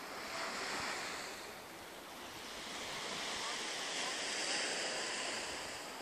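Small sea waves washing onto a sandy beach: a steady surf hiss that swells twice, the second surge longer.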